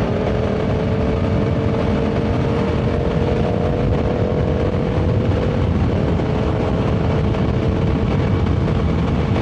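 Sport motorcycle engine holding a steady note at cruising speed, with heavy wind rush over it. The engine note dips slightly about six seconds in.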